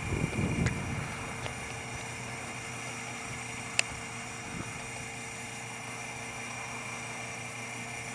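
Steady mechanical drone holding a few fixed tones, with a brief low rumbling near the start and a single sharp click about four seconds in.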